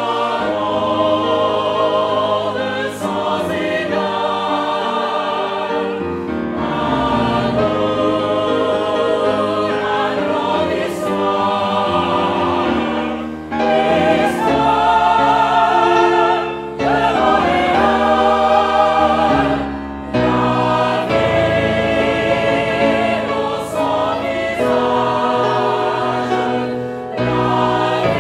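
Mixed choir singing an operatic finale in French, with a female and a male soloist singing in front of it. The voices sing long phrases with vibrato, with brief breaks between them.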